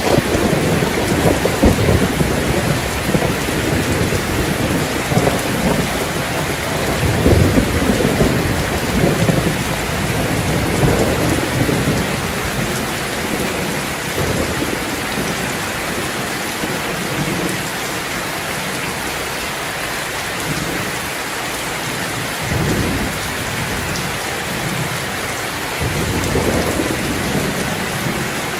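Steady heavy rain falling on a terrace, with low rumbles of thunder coming and going, strongest in the first half.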